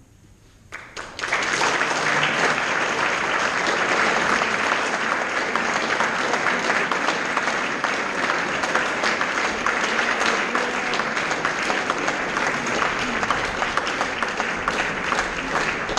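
Audience applauding, breaking out about a second in after the last note dies away and going on steadily.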